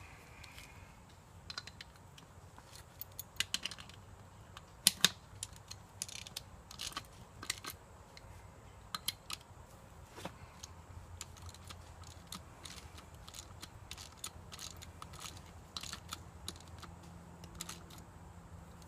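Light metallic clicks and taps of bolts, nuts and washers being handled and pushed through the two halves of a minibike split rim by hand, irregular and scattered, with the sharpest knocks about five seconds in.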